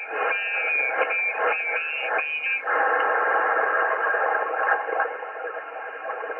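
Shortwave transceiver's speaker giving 20-metre single-sideband band noise: a steady, narrow-band hiss of static. For the first two and a half seconds whistling heterodyne tones and a warbling signal sit over it, then only the hiss goes on.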